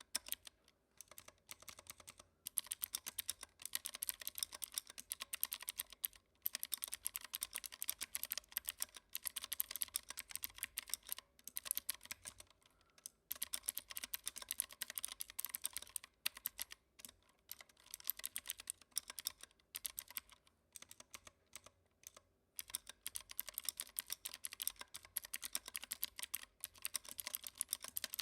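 Continuous fast typing on a WhiteFox mechanical keyboard with clicky Kailh Blue switches, lubed stabilisers and foam-dampened case: a dense run of sharp key clicks broken by brief pauses now and then.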